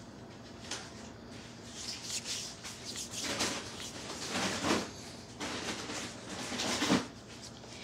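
Hands rubbing lotion into the skin of an arm: irregular swishing rubs, the strongest about halfway through and near the end.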